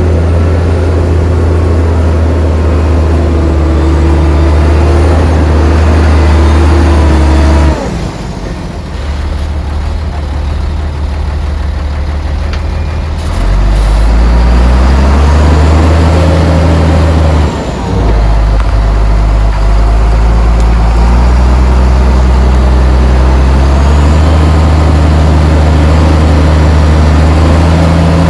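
Heavy diesel engine of earthmoving machinery working, its revs easing off about a quarter of the way in, climbing again near halfway, dipping briefly, then rising once more later on.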